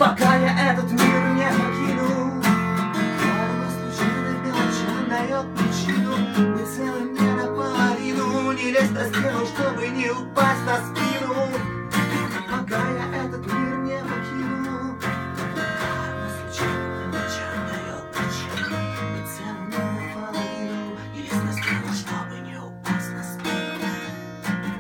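Acoustic guitar strummed alone in an instrumental passage after the last sung line, growing gradually quieter toward the end.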